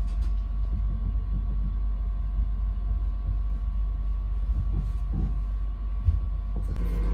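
Steady low rumble of a moving passenger train, heard from inside the closed air-conditioned coach, with one sharp knock about six seconds in. The sound changes abruptly just before the end.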